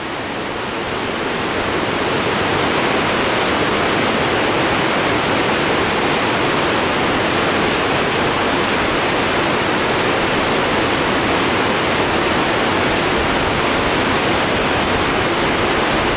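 Steady rush of creek water pouring over and below a dam, running high and turbulent after rain. It swells over the first two seconds, then holds level.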